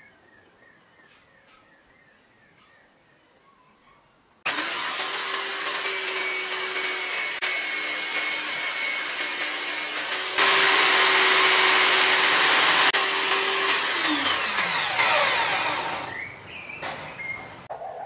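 Electric buffing wheel running with a steel knife blade held against it: a steady motor hum under a harsh hiss of polishing. It starts abruptly about four seconds in and gets louder partway through. Near the end the motor is switched off and winds down, its pitch falling. Faint bird chirps can be heard before it starts.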